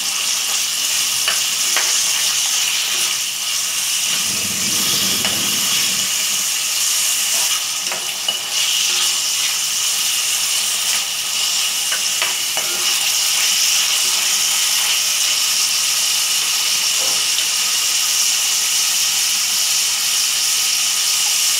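Chicken strips sizzling steadily in hot oil over high heat in a heavy black pot, with a spatula stirring and scraping them now and then.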